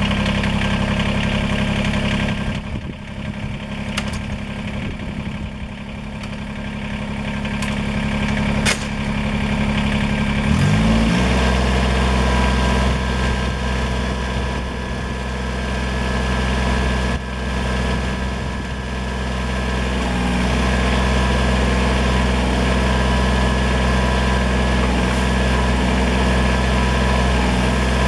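Kubota BX23S compact tractor's three-cylinder diesel running steadily, with a few sharp clicks. About ten seconds in the engine note shifts and settles into a deeper, heavier steady run.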